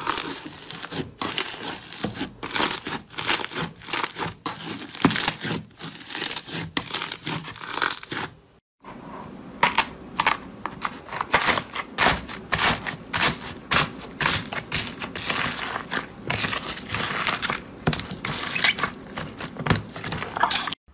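Hands kneading, stretching and pressing slime, giving a dense run of crisp crinkling, crackling and tearing sounds. It breaks off briefly about nine seconds in, then fingers pressing into a tub of slime topped with foam beads make more crackling.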